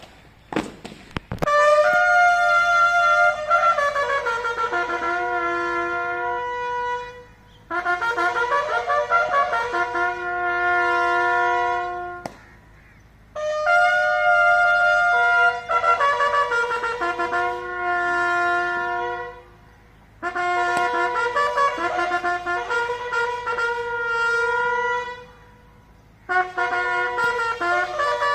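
Bugle sounding a long call of held notes in five phrases, each a few seconds long and separated by short pauses, as the flag is lowered in the border retreat ceremony.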